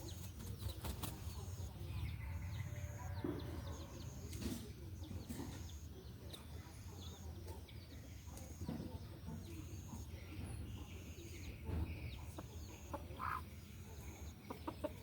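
Chickens clucking in short, scattered calls over a steady low background rumble, with a faint high pulsing tone repeating under once a second.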